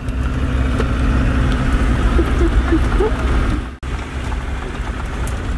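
Land Rover Defender driving, its engine and road noise heard from inside the cab, steady and loud. A few faint short squeaks come through about halfway, and the sound cuts out for an instant about two-thirds of the way through before running on.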